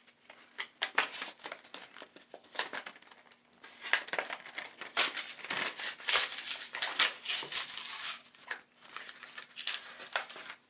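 Pen packaging being torn open and handled by hand: a run of crinkling, clicking and rustling, densest and loudest in the middle stretch.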